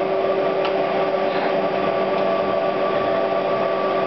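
Dustless chalk-making machine running with a steady hum and a constant mid-pitched tone, and a few faint light clicks over it.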